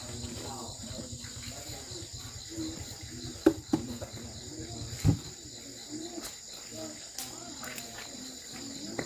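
A steady, high-pitched chorus of insects. A few sharp knocks come about three and a half seconds in, and the loudest comes about five seconds in. A low rumble underneath stops at that last knock.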